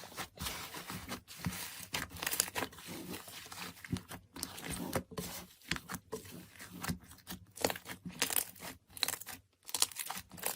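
Slime being squeezed and pulled by hand: an uneven run of crackles and sticky pops.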